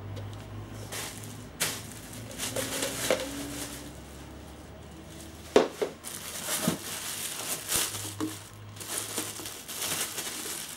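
Plastic packing bags crinkling and rustling as parts are handled and pulled out of their packaging, with a couple of sharp knocks, the loudest just past the middle.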